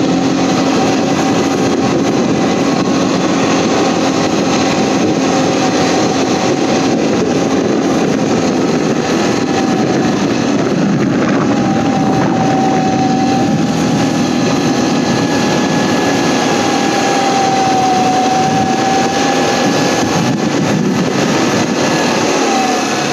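ATV engine running steadily while towing a kayak through snow. A dense engine noise carries a steady whine that wavers slightly and drops in pitch near the end.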